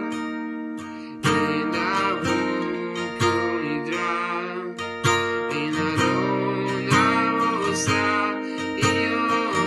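Acoustic guitar strummed in a steady rhythm, with a man singing along. A chord rings out and fades for about the first second before the strumming picks up again.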